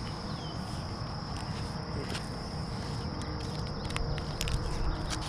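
A steady high-pitched insect drone, with a low rumble underneath and a few sharp clicks about two seconds in and again around four to five seconds in.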